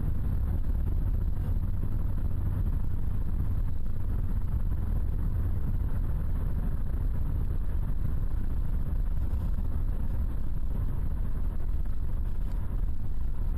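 Steady low rumble of a vehicle driving at highway speed, heard from inside the cabin: tyre, road and engine noise.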